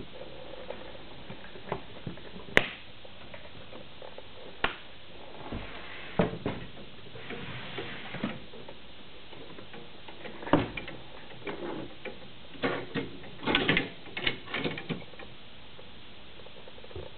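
Brass latches of a wardrobe steamer trunk clicking as they are undone, the sharpest click about two and a half seconds in, followed by scattered knocks and scrapes of wood as the trunk is opened and its drawers are handled.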